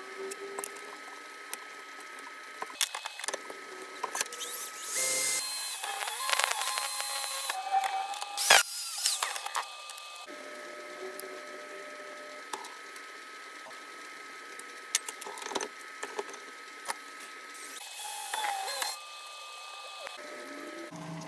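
Hand work on a steel strip in a bench vise: scrapes, taps and clanks of metal on metal, with one sharp metal knock about eight and a half seconds in.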